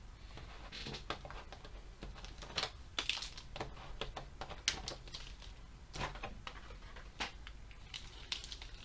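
Foil Pokémon booster packs crinkling and a clear plastic packaging tray clicking as the packs are lifted out and handled: a run of irregular small crackles and clicks.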